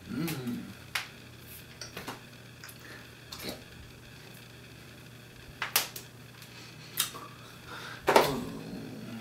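Sharp slaps and claps of hands striking each other and the body while signing, scattered irregularly, with the loudest about two-thirds of the way through and near the end. Brief wordless voice sounds come at the start and near the end.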